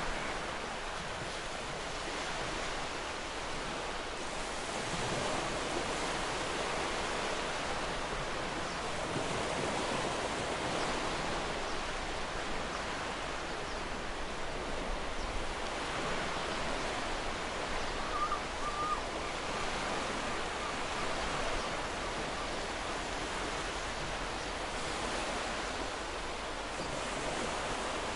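Sea waves washing on a shore: a continuous rushing surf that swells and eases every few seconds.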